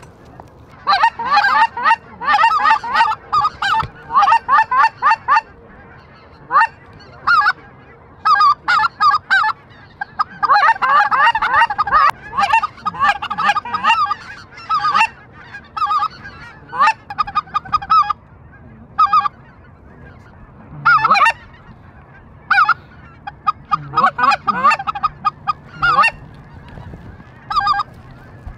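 Geese honking and clucking, many calls overlapping in quick bursts with short gaps between them; the busiest stretch comes in the middle.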